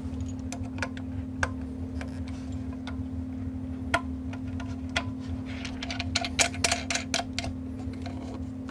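Scattered light clicks and taps, thickest about two-thirds of the way through, over a steady low hum.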